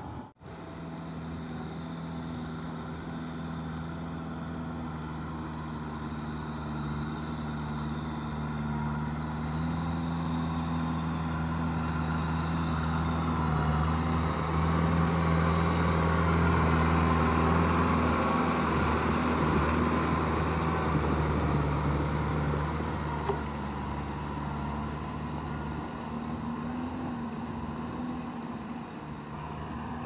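Kubota M6240SUH tractor's diesel engine running steadily under load as it pulls a rotary tiller through a flooded paddy. It grows louder as the tractor passes close, loudest a little past halfway, then fades as it moves away.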